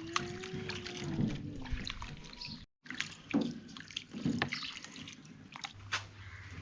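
Water splashing and dripping as raw beef pieces are washed by hand. A steady low tone fades out after about two seconds, and the sound cuts out briefly near the middle.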